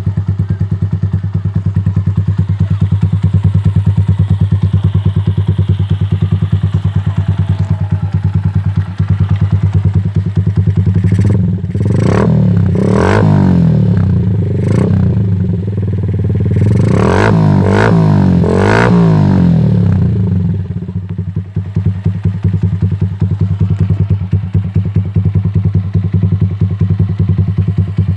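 Rusi cafe racer motorcycle idling through an aftermarket bullet-style exhaust pipe with an extender, a steady pulsing idle. Around the middle the throttle is blipped about six times in quick succession, each rev rising and dropping back, before it settles to idle again.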